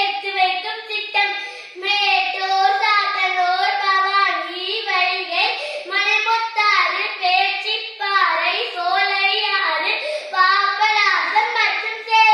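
A boy's high-pitched voice delivering a speech in Tamil, loud and forceful, with hardly a pause.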